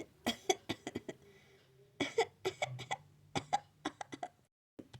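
A person coughing in two fits, each a run of several short, quick coughs.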